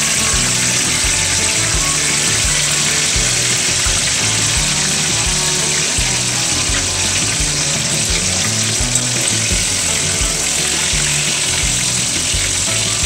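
Eggplant halves frying in hot oil in a pan, a steady sizzle, with background music and a bass beat underneath.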